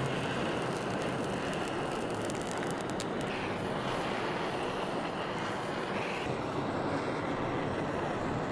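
Handheld kitchen blowtorch flame hissing steadily as it scorches the skin of a slab of pork belly, with a few faint crackles in the first three seconds.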